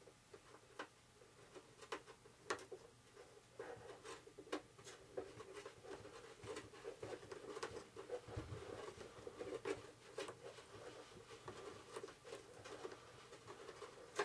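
Faint scattered small clicks and rubbing from hands fitting control rod ends onto the tail surfaces of an RC model airplane.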